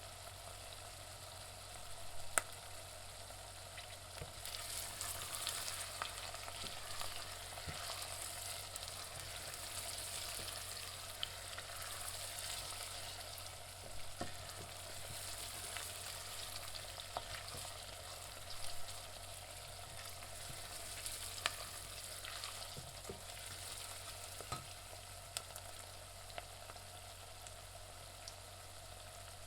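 Onions frying in a pan: a steady sizzling hiss with scattered sharp pops and crackles, and now and then the scrape of the onions being stirred. A low hum runs underneath.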